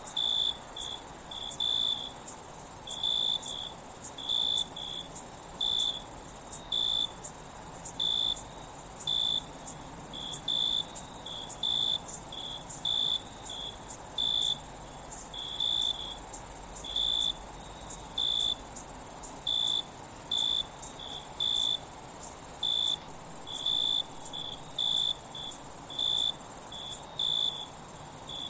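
Night insects: crickets chirping at about one chirp a second over a continuous high-pitched insect trill, with a few very brief drops in the sound.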